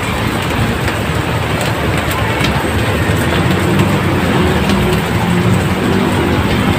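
Heavy rain pouring down in a steady hiss, with a motor vehicle's engine running underneath from about halfway through.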